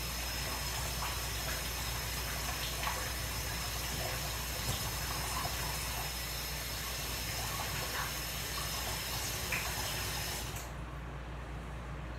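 Kitchen tap running into the sink while dishes are washed, with light clinks of dishes now and then. The running water stops abruptly near the end.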